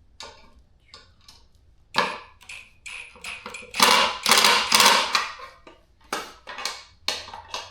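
A hand tool cranking down the bolts of a kayak transducer mount. It gives a run of sharp knocks and scraping strokes, with the loudest cluster in the middle.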